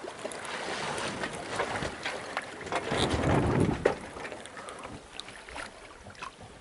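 Sea water rushing and splashing along the hull of a sailing yacht under way, with wind buffeting the microphone. The rushing swells to its loudest, with a low wind rumble, about three seconds in, then eases off.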